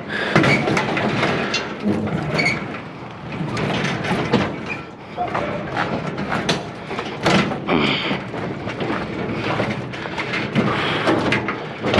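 A heavy scrap-metal item being heaved, dragged and shoved onto a trailer: repeated clanking, knocking and scraping of metal, with several sharp bangs.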